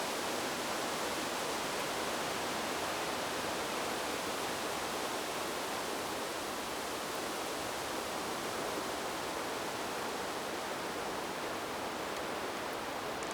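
Wind blowing through trees: a steady rush of wind in the leaves, without sharp gusts.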